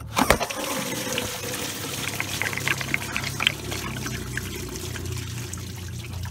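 Engine coolant running out of the radiator at the loosened lower hose into a drain container, a steady splashing pour, after a sharp knock right at the start.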